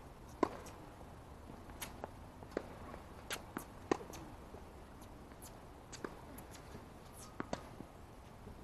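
Tennis ball being hit back and forth on a hard court: sharp pops of the racquet striking the ball and knocks of the ball bouncing, coming irregularly every half second to a second or so. The loudest come about half a second in and about four seconds in.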